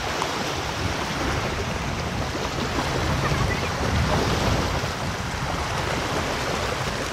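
Steady rushing noise of wind buffeting the microphone, mixed with lake water sounds.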